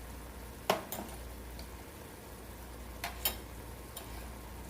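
Kitchen utensils clinking against a cooking pot while seasoning is added: one sharp clink a little under a second in, then a pair of lighter clinks about three seconds in.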